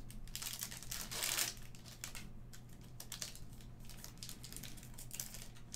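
Wrapper of a pack of football trading cards being torn open and crinkled by hand: irregular crackling, loudest about half a second and a second and a half in.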